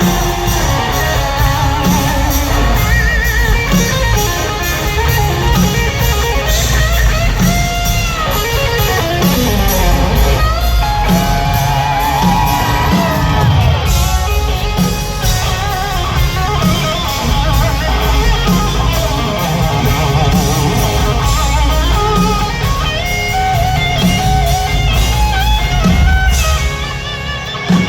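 Live country-rock band playing an instrumental break: electric guitar lead with bent notes over drums and bass.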